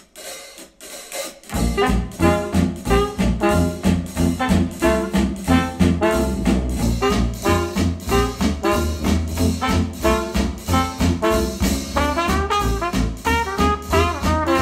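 A retro jazz track with brass and a steady beat, played back through a pair of hi-fi bookshelf speakers (KEF Q350, then Polk Audio R200) driven by an Audiolab 6000A integrated amplifier. The track starts after a short pause about a second and a half in.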